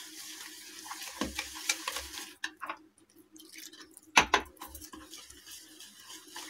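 Wire whisk stirring a wet semolina and buttermilk batter in a plastic bowl, with light scraping and clicks of the whisk against the bowl and a brief pause. A sharper knock comes about four seconds in.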